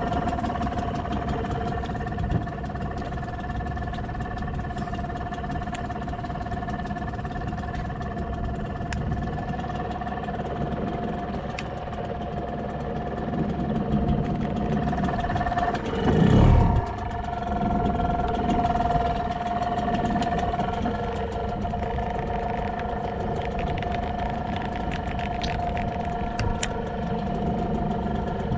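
A small fishing boat's motor running steadily at a constant pitch, over low wind and water rumble. About halfway through there is a brief louder rumble.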